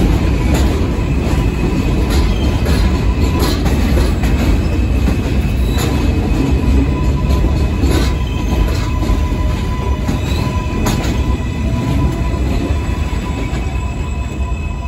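New York City Subway L train cars running past on the steel elevated structure: a heavy rumble with irregular wheel clicks over rail joints and a thin steady high squeal. The noise eases a little near the end as the train pulls away.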